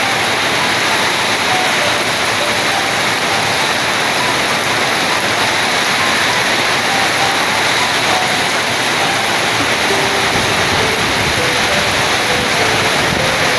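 Rain falling steadily in strong wind, a loud, even hiss of water with no let-up.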